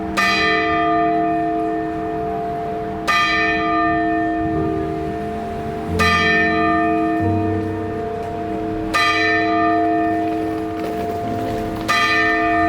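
Sapporo Clock Tower's bell striking the hour: five loud strokes about three seconds apart, each ringing on long enough to overlap the next.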